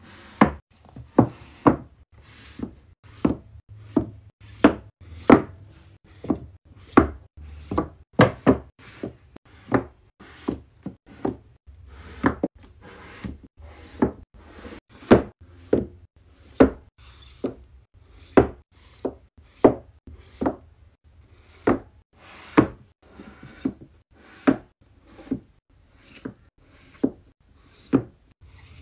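Paperback books being set down, stacked and tapped into place on a shelf: a long run of sharp knocks at uneven spacing, about one or two a second.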